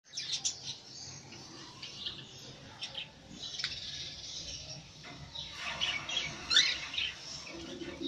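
Cockatiels chirping in short calls, the loudest a quick rising call about six and a half seconds in. Under the calls, a cockatiel splashes and flutters its wings in a plastic water dish.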